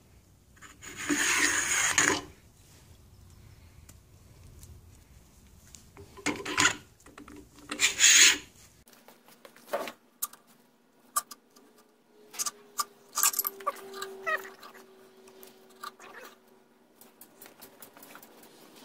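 Evinrude 40 HP water pump housing, plastic, rubbing and scraping as it is worked down over the drive shaft and rubber impeller: a longer scrape about a second in and two shorter ones later, then scattered light clicks and taps of the parts being handled.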